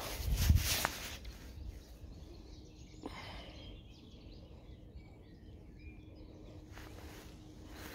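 A brief rumbling thump of handling on the microphone about half a second in, then quiet lakeside ambience with faint bird chirps.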